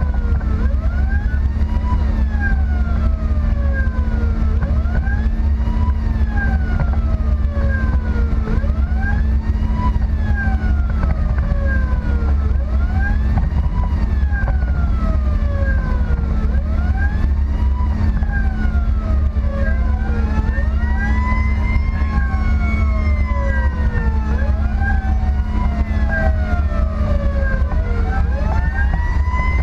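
An emergency vehicle's siren heard from inside the responding vehicle, wailing up and down about every two seconds. A second siren with a slower sweep joins about twenty seconds in. A steady engine and road rumble runs underneath.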